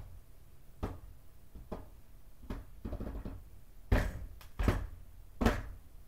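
A series of irregular knocks and clunks, roughly one a second, from kitchen items being handled at the stovetop; the loudest come in the second half.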